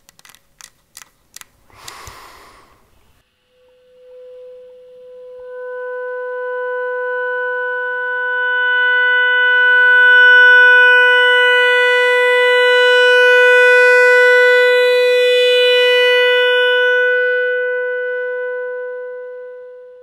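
A few light clicks, then a wooden clarinet holding one long, steady note for about sixteen seconds. The note swells in softly, grows loud and fades away at the end.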